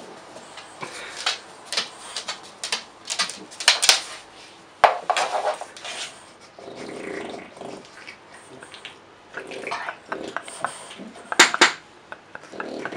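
A man snoring loudly in irregular, harsh snorts and rattles.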